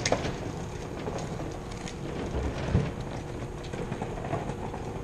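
Steady rattling rumble with scattered light knocks and one louder thump about halfway through, as cased equipment is wheeled and handled on a concrete loading-bay floor.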